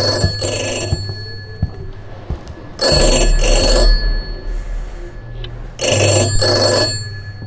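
Desk telephone ringing with a double ring (two short rings together), three times about three seconds apart.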